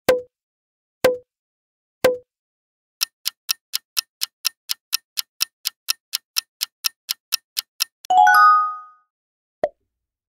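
Quiz timer sound effects: three short pitched beeps a second apart, then fast clock-like ticking at about four ticks a second for nearly five seconds, ending in a ringing chime of several tones and a single short blip near the end.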